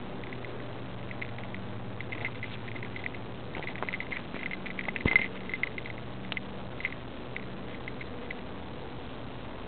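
Irregular light clicks and rustles from a cat's movement through garden undergrowth, with its collar-mounted camera jostling. The clicks are busiest about four to five seconds in and die away near the end, over a steady low hum.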